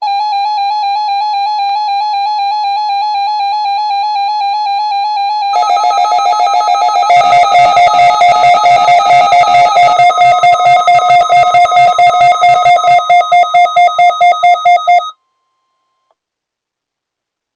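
Synthesized electronic alert tone. A warbling beep runs for about five seconds, then more tones join and it becomes a louder pulsing pattern of about four pulses a second, which cuts off suddenly near the end.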